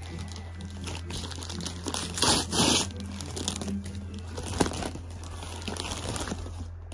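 Brown kraft-paper Amazon mailer bag being torn open and handled, crinkling and rustling unevenly, with the loudest tearing rustle a little over two seconds in.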